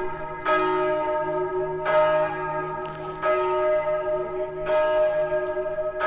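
A single church bell tolling steadily. It is struck about every second and a half at the same pitch, and each stroke rings on into the next.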